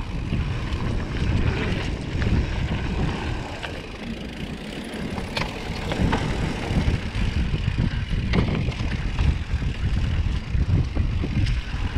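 Wind rumbling on the microphone while a mountain bike rolls fast down a dirt trail, with tyre and drivetrain noise and a few sharp knocks and rattles from the bike over bumps, about halfway through and again after eight seconds.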